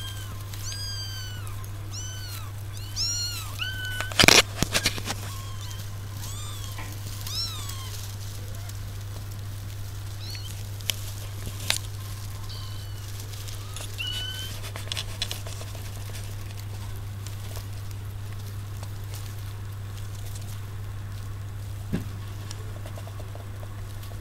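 Kittens mewing: a quick run of short, high-pitched, arching mews, then a few scattered ones before they fade out. A sharp knock about four seconds in is the loudest sound, with a few lighter clicks later, all over a steady low hum.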